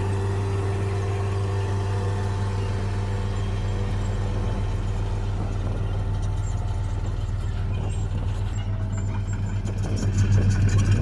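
Heavy diesel engine of a construction machine running steadily, growing louder and more throbbing about ten seconds in as it takes on more load or comes closer.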